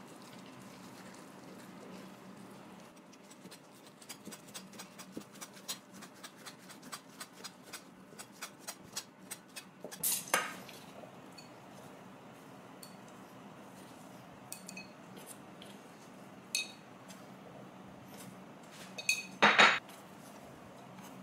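Kitchen knife chopping thin egg-white omelette into strips on a plastic cutting board, a quick run of light taps. There is a louder clatter about halfway through, and a louder knocking of the board and chopsticks against a pot near the end.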